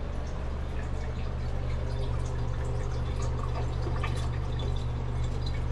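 Water dripping and trickling from a BB-punctured plastic water bottle, in many small irregular drips, over a steady low hum.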